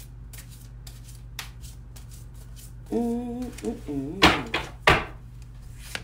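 A deck of oracle cards being shuffled by hand, with light, irregular card clicks. About three seconds in comes a brief hummed voice sound, followed by two loud knocks about a second apart.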